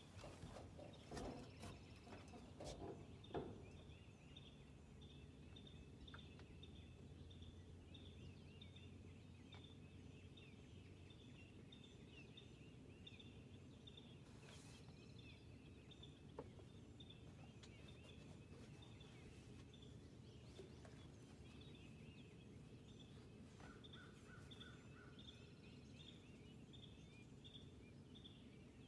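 Near silence: faint outdoor ambience with a steady rhythmic high chirping, about two or three chirps a second, and a few soft knocks in the first few seconds.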